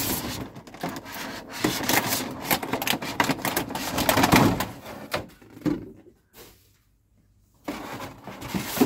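Clear plastic blister packaging crackling and rubbing as a painted car-body part is worked out of it by hand. The crackling is dense for about five seconds, stops briefly, then comes back more softly near the end.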